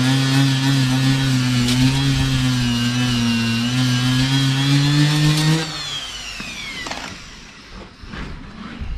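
Pneumatic die grinder with a rounded abrasive tip buffing a rubber inner tube around a puncture, roughening it for a patch. It runs with a steady whine whose pitch dips slightly as it is pressed into the rubber, is let go about five and a half seconds in and spins down with a falling whine, followed by a few light knocks.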